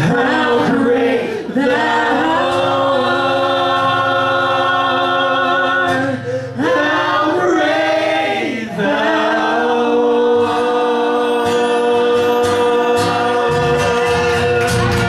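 Live worship music: women's voices singing long held notes in harmony over a steady instrumental backing.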